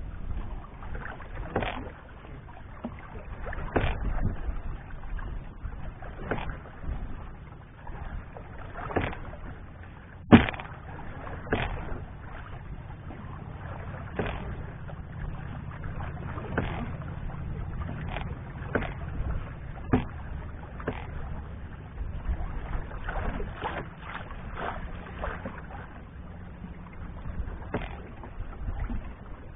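Small waves knocking and slapping irregularly against the hull of an Old Town Discovery 133 canoe, with a low wind rumble underneath. The sharpest knock comes about ten seconds in.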